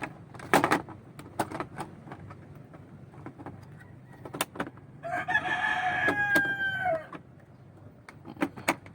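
A rooster crowing once, a held call of about two seconds that dips in pitch at the end, starting about five seconds in. Scattered sharp clicks and knocks come before and after it.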